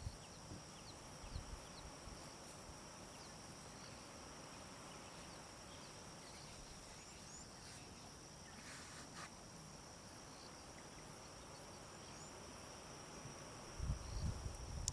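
Faint outdoor bush ambience: a steady high-pitched insect trill, like crickets, with a few short, faint bird chirps. A low rumbling noise comes in near the end.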